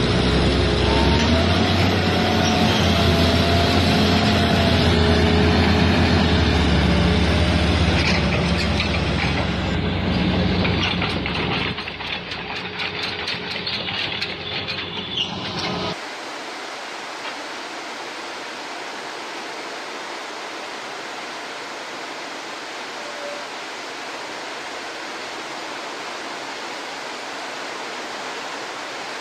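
Diesel engine of a heavily loaded log truck running hard under load, its pitch wavering. About halfway through it cuts off abruptly to a steady, featureless hiss.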